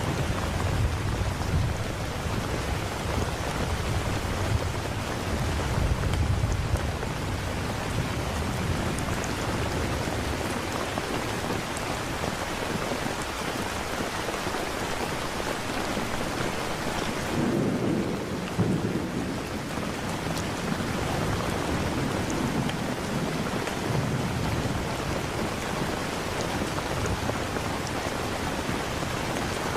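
Steady rain with low, rolling thunder rumbles, once through the first several seconds and again a little past the middle.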